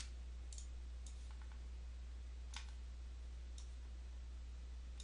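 A handful of sharp, isolated computer mouse clicks spread across a few seconds, over a steady low electrical hum.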